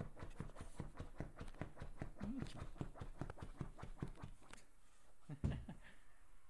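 A small dog scratching rapidly at an upholstered chair cushion with its front paws, several quick scratches a second. The scratching thins out near the end, with one dull thud.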